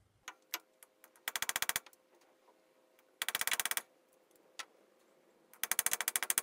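Rapid metallic clicking in three short bursts of about half a second each, with a few single clicks between them. It comes from a hand tool working at small seized screws, the stubborn ones left on the engine's front.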